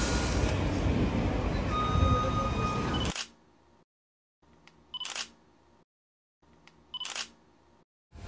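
A steady noisy background cuts off abruptly about three seconds in, then two camera shutter clicks about two seconds apart sound against silence.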